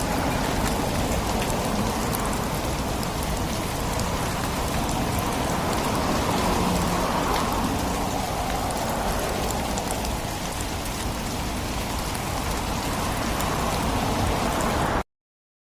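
Rain falling steadily on a city road: a dense, even hiss of water with many small drop spatters, swelling slightly midway. It cuts off suddenly shortly before the end.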